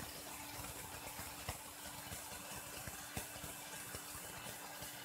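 Quiet room tone: a faint steady hum with a light hiss and a few soft clicks.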